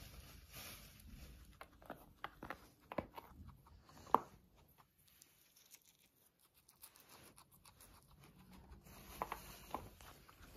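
Silkie guinea pig biting and chewing a dandelion: faint, irregular crisp snips and crunches, the sharpest about four seconds in.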